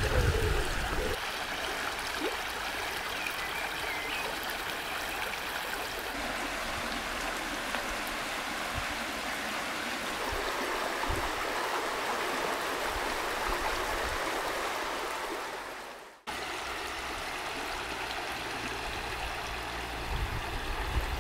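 Shallow rocky stream running over stones, a steady rushing of water. It cuts out for a moment about three-quarters of the way through, then carries on.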